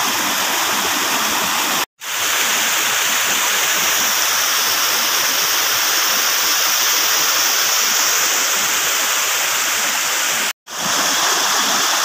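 Rushing water of a small mountain river, a steady, even rush that cuts out for an instant twice, about two seconds in and again near the end.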